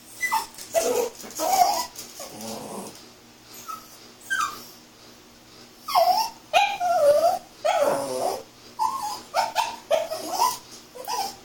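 Chiweenie puppy whining and yipping in a long run of short calls, many wavering up and down in pitch, coming in quick clusters with brief gaps between.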